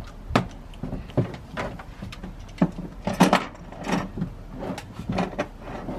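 Irregular light clicks and knocks from the plastic door and body of a child's ride-on toy Mercedes truck as the door is opened and the child climbs in, with a louder cluster of knocks about three seconds in.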